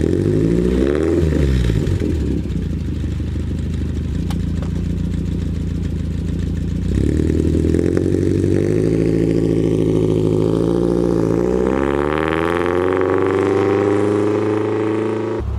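1978 Triumph Spitfire 1500's four-cylinder engine through its Monza exhaust. A brief rev is followed by a few seconds of steady idle, then the car pulls away about seven seconds in. The engine note rises, dips briefly and rises again as the car drives off.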